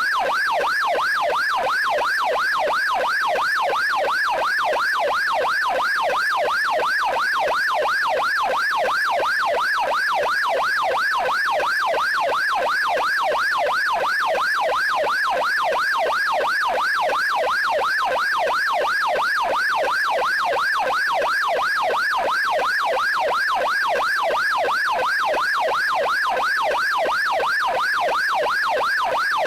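Police siren in yelp mode: a rapid wail sweeping up and down about three times a second, steady and unbroken.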